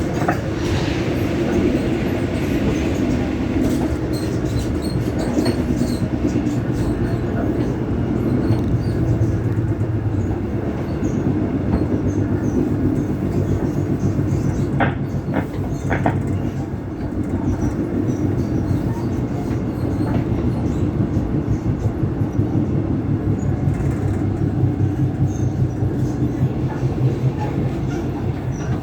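Taiwan Railway EMU600 electric multiple unit running, its motor car's traction motor sound carried into the trailer car through cabin PA speakers left switched on, over the train's rolling noise. The motor hum holds steady tones whose pitch shifts now and then, with two sharp clicks about halfway through.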